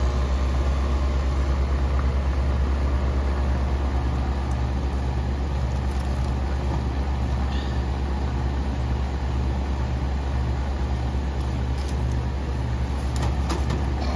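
An old R22 central air conditioner condenser runs with a steady low hum from its compressor and fan. The unit has just started up after its failed contactor and capacitor were replaced.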